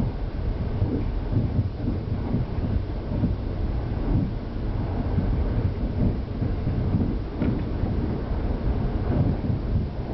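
Uneven low rumble of a KTR001-series diesel railcar running along the line, heard from inside the front cab.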